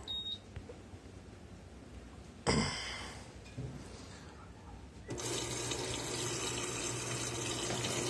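Electrolux LAI17 top-load washing machine: a short high beep near the start and a sudden knock about two and a half seconds in. About five seconds in, water starts rushing steadily into the drum with a low hum as the inlet valve fills it.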